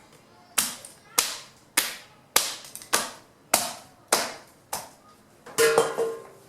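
Fallen branches being chopped into wood chips by hand: a steady run of sharp chopping strikes, about one every 0.6 seconds, ending in a louder, longer clatter with a brief ringing tone.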